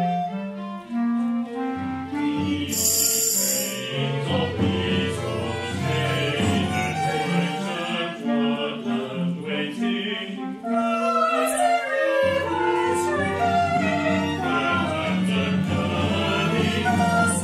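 Live chamber ensemble playing contemporary classical music: voices singing over recorders, violins, viola and bass clarinet in sustained, shifting notes, with a brief bright high ringing about three seconds in.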